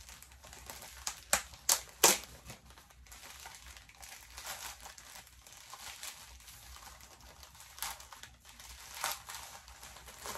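Plastic mailer bag crinkling and rustling as it is handled and pulled open, with a few sharp crackles about one to two seconds in and more crinkles near the end.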